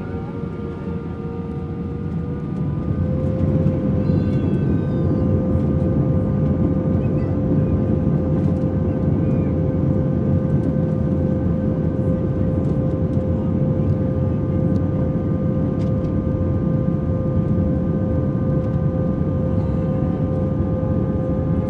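Airbus A320 jet engines heard from inside the passenger cabin, a steady whine over a deep rumble, rising in level and pitch about two to three seconds in and then holding steady at takeoff power.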